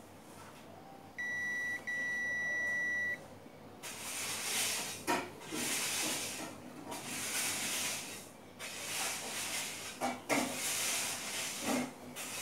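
Digital multimeter continuity beep: one steady high beep about two seconds long with a brief dropout, sounding as the probes touch two connected points on the circuit board. It is followed by a series of soft hissing rushes, each a second or so long.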